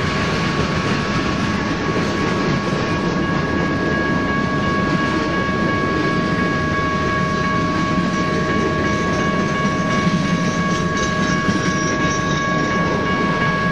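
BNSF freight train cars rolling past, with the steady rumble and rattle of wheels on the rails and a steady high-pitched ring over it.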